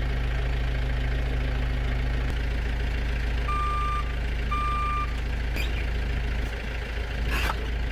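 Engine idling steadily, with a vehicle backup alarm beeping twice about a second apart around the middle, and a short noisy rasp near the end.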